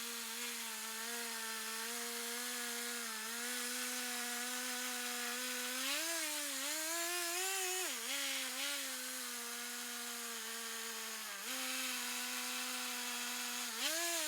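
Stihl 440 two-stroke chainsaw running at full throttle while ripping a log lengthwise in a chainsaw mill, its volume turned down. The engine note holds steady, then wavers and dips as it loads in the cut around the middle and again briefly later, and rises again near the end.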